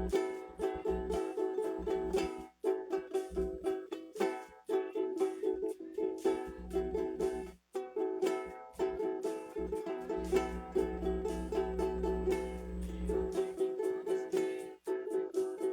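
Acoustic guitar strummed steadily in a quick repeating rhythm, with a few short breaks between phrases.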